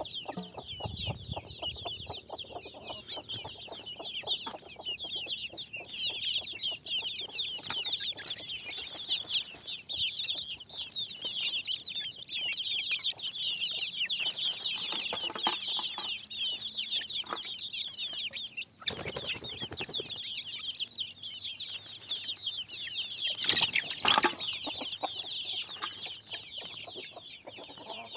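Chickens clucking over a dense, continuous chorus of high-pitched peeping. A brief louder noise comes about 19 seconds in, and another, the loudest, a few seconds later.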